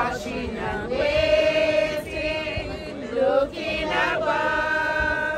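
A group of voices singing a hymn together in long held notes.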